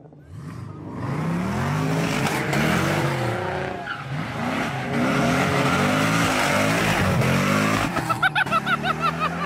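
A car engine revved hard again and again, its pitch climbing and falling over and over, over the rushing noise of skidding tyres, as the car drifts and then pulls away. Near the end, a quick run of short, high warbling sounds.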